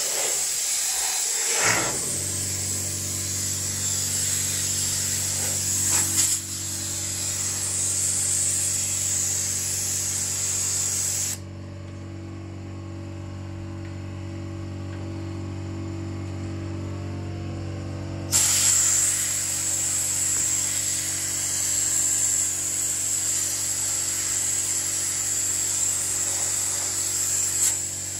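A steady hiss over a low, even machine hum, with a few knocks in the first seconds. The hiss drops out for about seven seconds midway while the hum keeps going, then returns.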